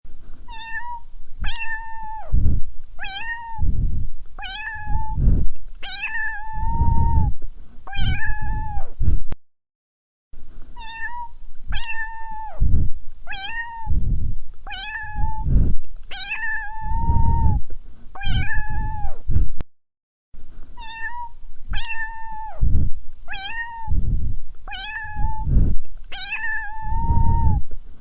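Domestic cat meowing repeatedly, with a call every second or so. Each meow is held fairly level and then falls away at its end, and several come with a low rumbling thump. The same run of meows plays three times over, broken by two short silences.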